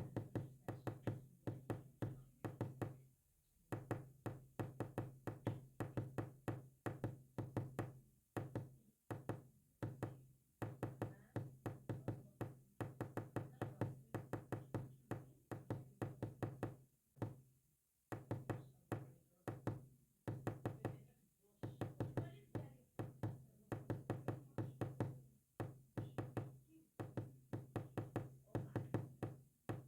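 Morse code sent as rapid knocking clicks, in runs of quick strokes broken by short pauses, with a low hum under each run.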